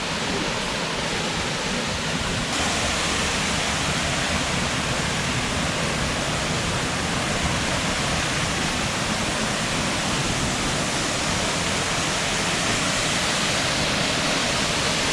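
Waterfall rushing steadily, a little louder from about two and a half seconds in.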